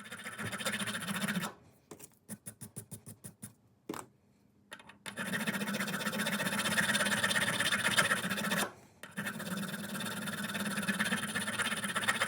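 Thread file rasping back and forth on the external threads of a brass spark plug insert, played at high speed. Dense scraping, then a run of quick separate strokes about two seconds in, then longer stretches of continuous filing with short pauses.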